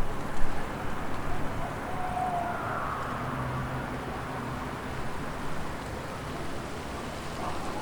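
Wind blowing through trees: a steady rushing hiss with stronger gusts in the first second, and a faint brief tone about two to three seconds in.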